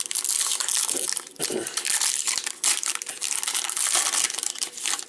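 Crinkling and tearing of a trading-card cello pack's plastic wrapper as it is ripped open by hand. The crackle comes in three long spells, with short pauses between them.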